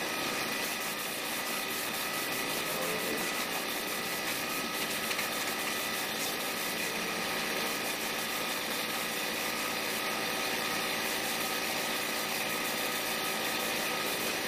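Paint spray gun hissing steadily as it sprays, over the steady hum of an air compressor running to supply it.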